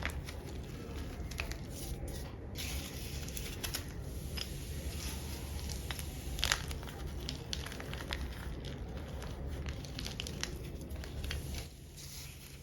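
Chunks of black-dyed gym chalk being crushed, a dense, continuous crunching and crumbling with one sharper snap about six and a half seconds in. It gets quieter near the end.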